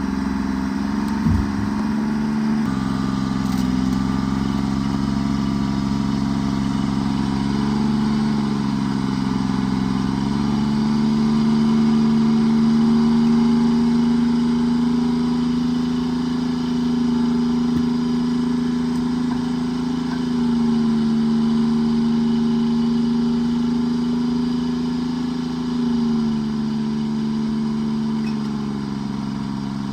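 Forestry forwarder's diesel engine running steadily while working logs, its engine speed rising about a third of the way in and dropping back near the end.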